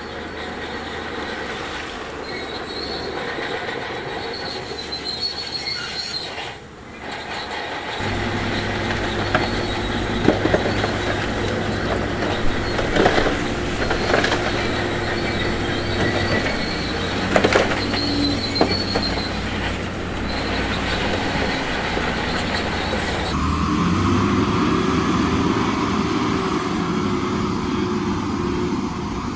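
Heavy earthmoving machinery at work: a diesel engine running under steel-on-steel squealing and clanking, with several sharp knocks in the middle. The sound changes abruptly about eight seconds in and again about two-thirds of the way through.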